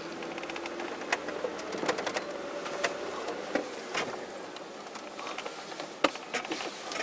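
A Land Rover Discovery 2 V8 crawling over a rough track, heard from inside the cabin: irregular clicks and knocks of the body and fittings rattling, over a faint engine note that rises and falls.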